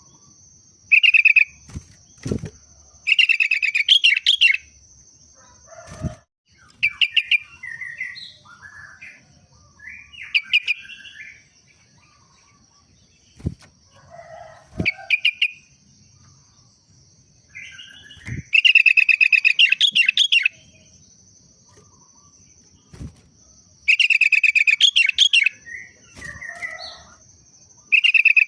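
Sooty-headed bulbul (kutilang) singing bursts of fast chattering notes, interspersed with shorter whistled calls, in the yellow-vented bulbul (trucuk) style its owner says it uses day to day. There are several loud phrases a few seconds apart, with a few thumps between them.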